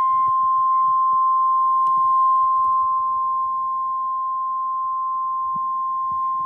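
Emergency alert warning tone of the kind NOAA Weather Radio sends at 1050 Hz: a single steady, loud, high beep held unbroken, dropping slightly in level about three seconds in. It is the attention signal that comes before a severe thunderstorm warning message.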